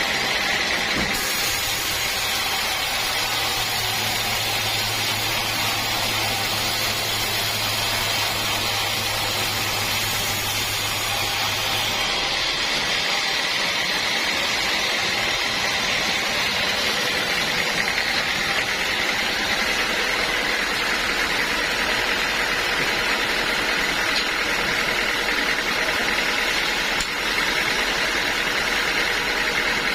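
Sawmill saw and its drive running steadily. A high hiss and a low hum drop out partway through while the machine keeps running.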